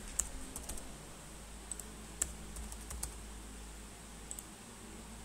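Computer keyboard keys being typed: scattered sharp clicks, single and in short runs of two or three, with a gap in the middle.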